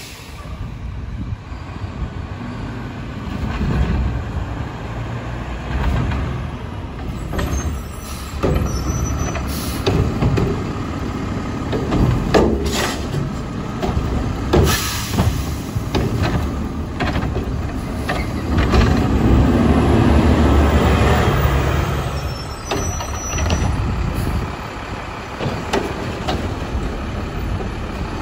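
Mack LEU garbage truck with a Heil Half/Pack body working a trash route: engine running and growing louder for a few seconds past the middle, with air brakes hissing and several sharp clanks.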